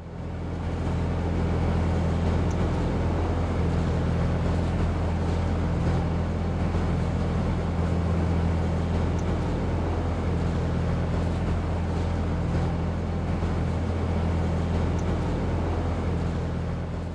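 Motorboat engine running at a steady pace: an even low drone that holds without change.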